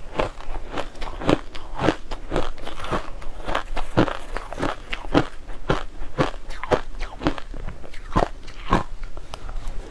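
Crunching and chewing of a mouthful of frozen purple shaved ice, with sharp crisp crunches at about three a second.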